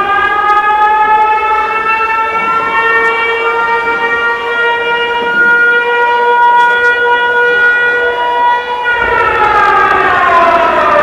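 Siren wail in the dance routine's backing track, holding one steady pitch and then sliding down in pitch about nine seconds in.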